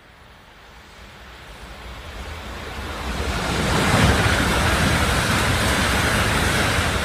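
923 series Doctor Yellow Shinkansen train passing at high speed: a rush of wind and running noise that swells over a few seconds, is loudest about four seconds in as the cars go by, and stays loud to the end.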